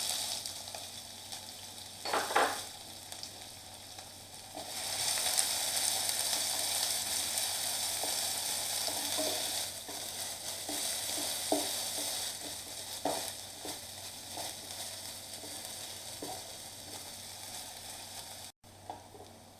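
Finely chopped onion sizzling as it fries in hot ghee in a kadhai, with occasional knocks of a spoon stirring it. The sizzle grows louder about five seconds in.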